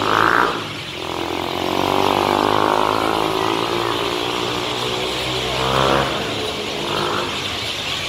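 A dense flock of birds chattering in roadside trees as they gather to roost at dusk. A road vehicle's engine passes between about one and six seconds in, its pitch bending up and down.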